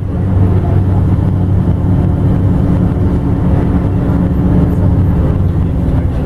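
Ikarus 250.59 coach's rear-mounted Rába-MAN six-cylinder diesel droning steadily under way, with road rumble, heard from inside the passenger cabin.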